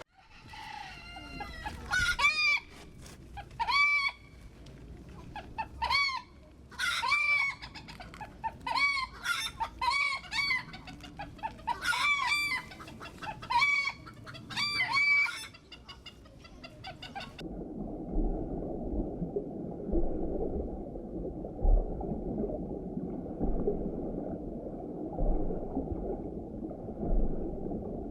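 Chickens calling in repeated short, arched clucks and squawks in quick groups. About 17 seconds in, this gives way to a muffled, steady low noise with occasional low thumps.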